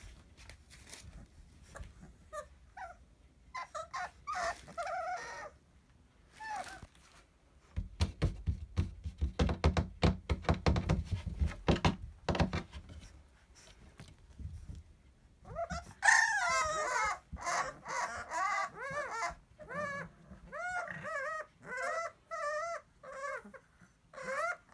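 Bulldog puppies whining and yelping in high, wavering calls, which come thick and fast in the last third. In the middle, a run of quick knocks and scuffles.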